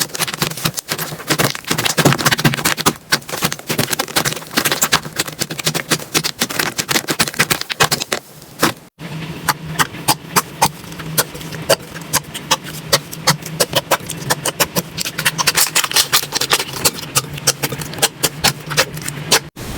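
Slime being squeezed and poked by hand, making rapid, dense crackling clicks and pops. There is a brief break about nine seconds in, where one clip cuts to the next.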